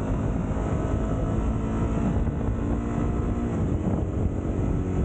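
Sport motorcycle's engine running steadily while riding at road speed, with wind rushing over the microphone.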